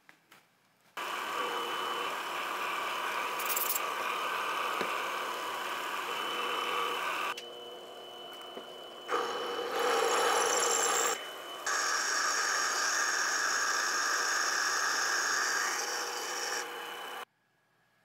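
Small benchtop lathe running while a drill bit cuts into a spinning 6061 aluminium crankcase blank, a steady cutting noise over a thin motor whine. It starts abruptly about a second in, drops to a quieter stretch around the middle, briefly dips once more, and cuts off suddenly near the end.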